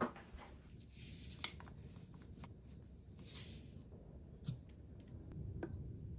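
Soft kitchen handling sounds: light clicks and rustles, with a sharp tap about four and a half seconds in as a metal measuring spoon of sugar is tipped into a small ceramic bowl.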